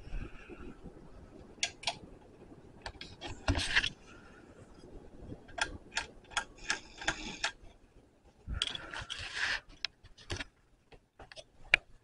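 Ceiling fan pull-chain switch clicking and its metal chain rattling, pulled several times in a row, over the fan's faint running.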